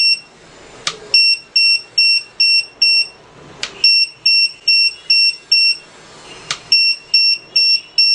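3-in-1 RC alarm buzzer in discovery (model-finder) mode, sounding bursts of five short, high-pitched beeps at about two and a half a second. Each burst is set off by flicking the auxiliary switch on the radio transmitter, heard as a click just before it. The tail of an earlier burst ends right at the start, then three full bursts follow.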